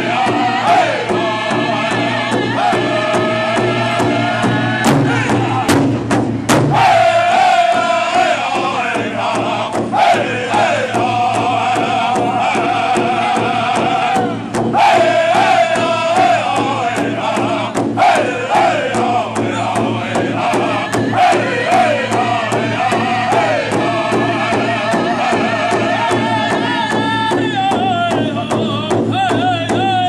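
Powwow drum group: several men singing together in loud, high voices over a steady beat that they strike in unison on one large drum.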